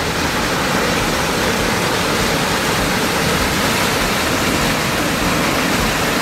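Small mountain-river waterfall pouring into a rocky pool: a steady, even rush of water.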